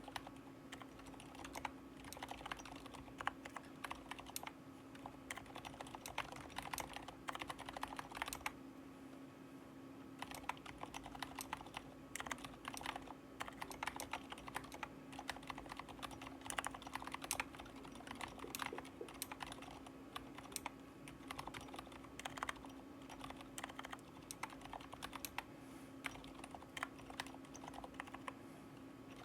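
Continuous typing on a Drop CTRL high-profile mechanical keyboard with 65 g Aliaz silent switches lubed with Krytox 205: a quick, irregular run of keystrokes, pausing briefly about nine seconds in.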